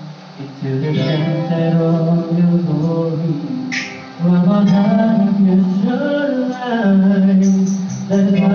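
A man singing into a handheld microphone, holding long notes that slide from one pitch to the next.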